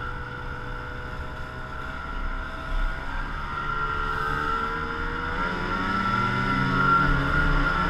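Snowmobile engine running under way, with a steady high whine over it. About five seconds in the pitch rises and it grows louder as the sled accelerates.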